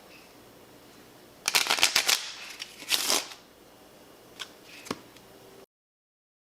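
Two quick bursts of many small rapid clicks, like a ruffle, followed by two single sharp clicks.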